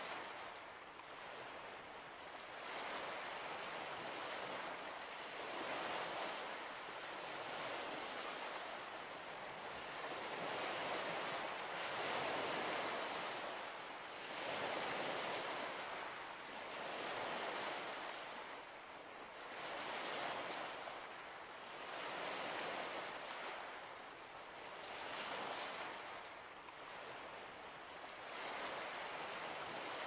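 Waves washing in on a shore, swelling and receding in a steady series about every two and a half seconds.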